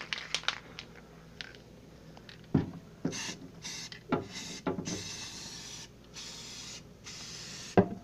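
Aerosol can of Krylon ColorMaxx gloss white spray paint hissing in several bursts with short breaks, starting about three seconds in, as a thick coat is sprayed into a microwave's cavity. A few light knocks and ticks come before and between the bursts.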